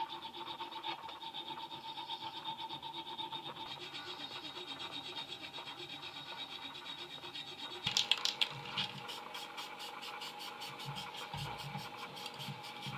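A hand file scraping back and forth in the slot of a metal sword guard clamped in a vise, in steady strokes. About eight seconds in, it gives way to a sharper run of metallic clicks and scrapes.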